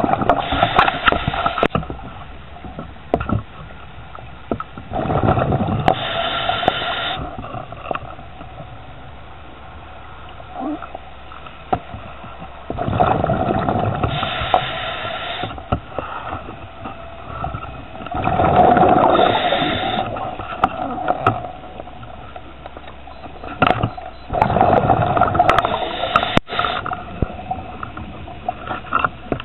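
Scuba diver breathing through a regulator underwater: exhaled bubbles rush out in five bursts of about two seconds each, roughly every five to six seconds, with quieter stretches in between.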